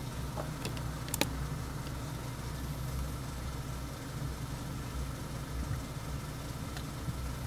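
Car engine idling, heard from inside the cabin as a steady low hum while stopped at a light. A couple of sharp clicks come about a second in.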